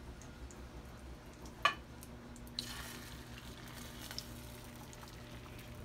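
Butter and beaten eggs sizzling in a hot frying pan, with one sharp knock about one and a half seconds in and a low steady hum underneath.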